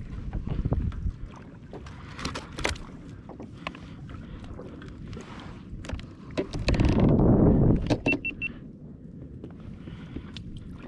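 Knocks, clicks and rustling of fish and tackle being handled aboard a plastic fishing kayak, with a louder rush of noise lasting about a second two-thirds of the way through, then three short high beeps.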